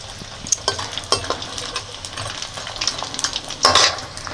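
Pieces of gond (edible gum) frying in ghee in a metal kadhai, sizzling steadily, while a steel ladle stirs them and clicks and scrapes against the pan. The sound gets louder for a moment about three and a half seconds in.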